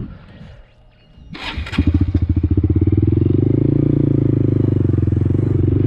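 Honda Grom's single-cylinder motorcycle engine starting about a second and a half in, then idling steadily.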